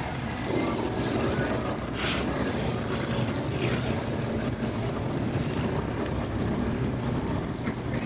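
Riding in night-time city traffic: a vehicle engine running steadily with road noise, and a brief hiss about two seconds in.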